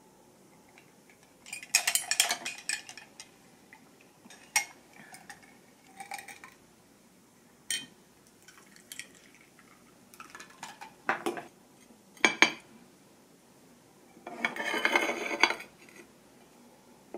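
Glass and ceramic tableware clinking and knocking on a table: a scatter of short knocks and clinks, and near the end a longer scraping rattle as ceramic figurines are shifted around the plate.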